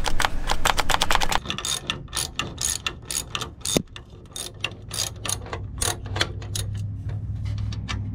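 Hand socket ratchet clicking in short, irregular runs as it is worked back and forth on the exhaust downpipe flange bolts. A low steady hum sits underneath in the second half.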